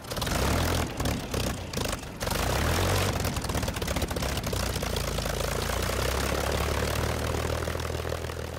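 Propeller aircraft's piston engine running: uneven and choppy for the first two seconds, then a steady drone that starts to fade near the end.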